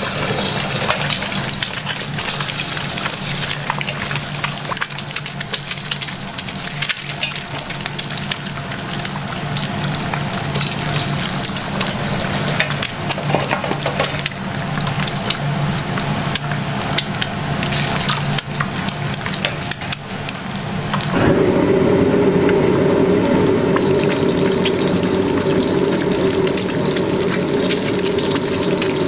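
Eggs frying in hot oil in a wok, sizzling with dense crackling spits over a low steady hum. About twenty seconds in, a louder steady drone joins in and holds.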